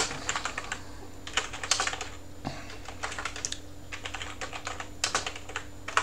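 Typing on a computer keyboard: several quick runs of keystrokes with short pauses between them.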